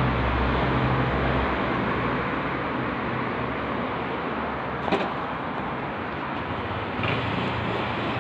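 City street traffic noise. A vehicle engine hum fades out after about a second and a half, and another engine comes in near the end as a delivery motor scooter moves off. There is a single sharp click about five seconds in.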